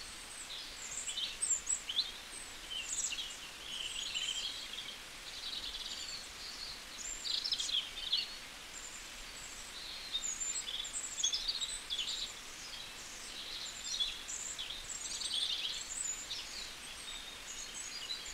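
Birds chirping and calling, many short high calls overlapping in a continuous chorus, over faint outdoor background hiss.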